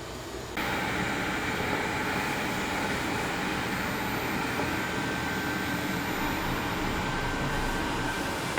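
Dreame D9 robot vacuum and mop running, its suction fan giving a steady whir that comes in suddenly about half a second in and holds at an even level.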